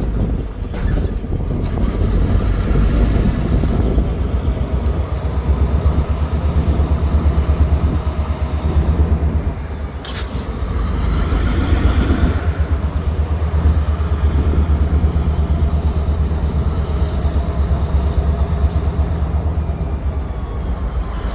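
Freight train rolling by with a steady low rumble, a faint thin high squeal that rises and fades twice, and a single sharp click about ten seconds in.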